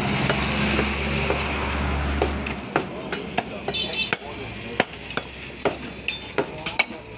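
Butcher's cleaver chopping beef on a wooden log chopping block: a quick series of sharp knocks starting about two and a half seconds in, with a brief metallic ring near the middle. A steady low hum runs under the first two and a half seconds.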